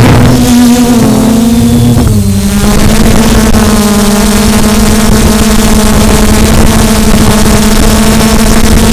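QAV400 quadcopter's electric motors and propellers running in flight, heard from its onboard camera: a steady pitched drone that dips slightly about two seconds in and then holds level over a rush of air noise.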